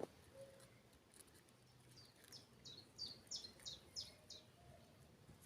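A small songbird singing faintly: a run of about seven short, high, falling notes, roughly three a second, in the middle of a quiet outdoor background.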